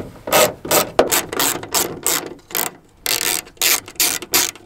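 Ratcheting screwdriver clicking in quick back-and-forth strokes, about three a second, with a short pause past halfway, as it undoes a truck tail light's mounting screw.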